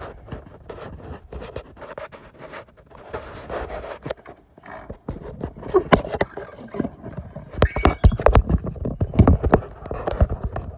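Irregular knocks, scrapes and bumps of a phone camera being handled and set in place, with a run of loud, sharp thumps in the second half.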